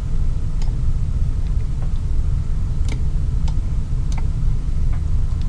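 Steady low rumble of background noise, with faint, irregular computer mouse clicks, about eight in all, as buttons are dragged and dropped.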